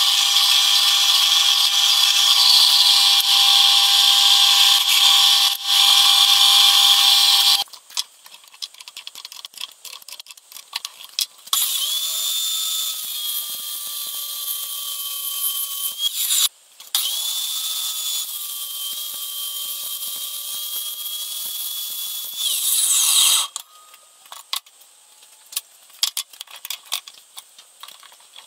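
A drill press bores through aluminium plate for the first several seconds, then clicks and clinks follow. A miter saw then cuts aluminium for about ten seconds with one short break. Light clicks of the metal piece being handled come near the end.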